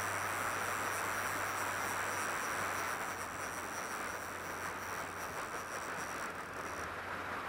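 Steady rushing of river water flowing over shallow riffles and a low spillway.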